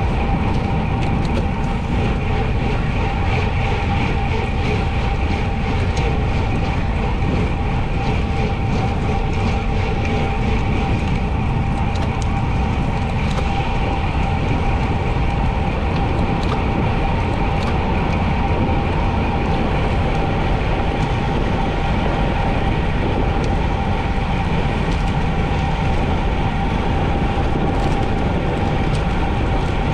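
Wind rushing over a helmet or handlebar camera microphone and the rolling noise of a road bicycle ridden at speed, steady throughout, with a faint constant whine and occasional light clicks.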